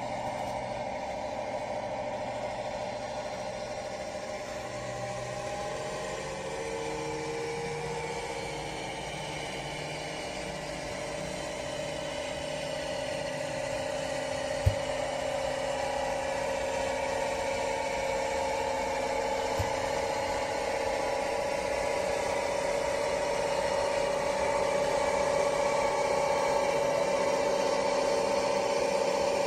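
Sound-fitted OO gauge model of a Class 55 Deltic diesel locomotive: its sound decoder plays the steady running note of the Napier Deltic engines through the model's small speaker, growing louder as the locomotive approaches. A single sharp click comes about halfway through.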